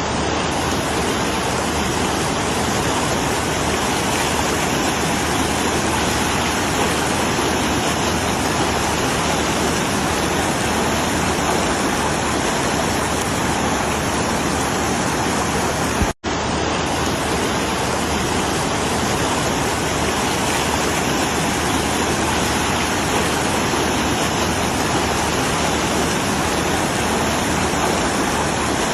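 Steady rushing of flowing water, like a mountain stream or waterfall, with a split-second dropout a little past halfway.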